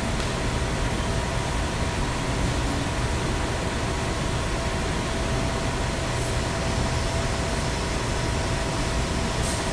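Steady drone of machine-shop machinery: an even rush of noise with a few constant humming tones.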